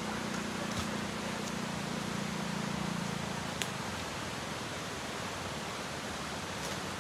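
Steady rushing outdoor noise, with a low hum that fades out about halfway through and two sharp clicks, one about a second in and a louder one about halfway.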